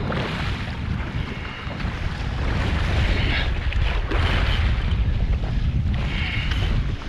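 Wind buffeting the microphone over choppy sea water splashing around a jetski, with the wind growing louder about a third of the way through.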